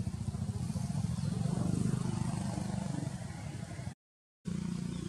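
A small engine running steadily with a low, rapid pulse. The sound cuts out for about half a second just before the end and then comes back.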